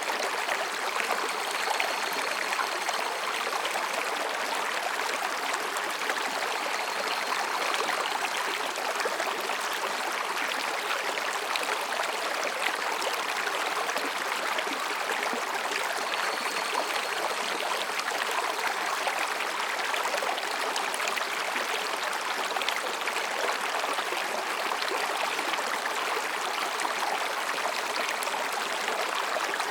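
Mountain stream babbling and splashing over rocks: a steady, even rush of water.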